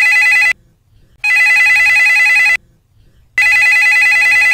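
Telephone ringing with an electronic warbling ring: bursts of about a second and a half, separated by short pauses. The tail of one ring ends just after the start, a full ring follows, and another begins near the end.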